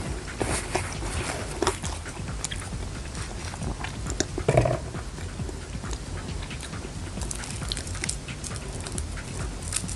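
Close-miked chewing and biting of grilled skewered street food, with many small wet mouth clicks. A short, louder throaty sound comes about four and a half seconds in.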